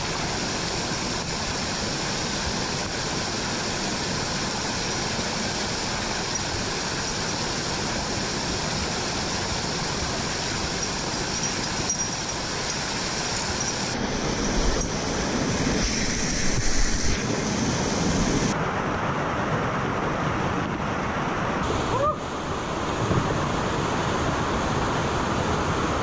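Rushing water of a mountain stream and its falls: a steady, even noise whose tone shifts abruptly about fourteen and eighteen seconds in.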